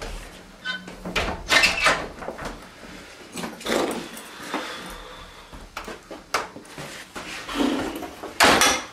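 A door handle and door being worked, with rustling and knocks as someone comes through. Near the end a backpack is dropped onto a table, giving the loudest thud.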